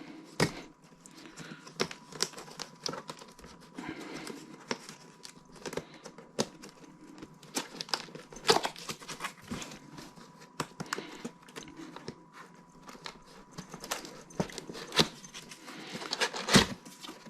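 Cardboard box being handled and opened: irregular rustling, crinkling and small knocks of cardboard and packaging, with a few louder clatters about eight and a half and sixteen and a half seconds in.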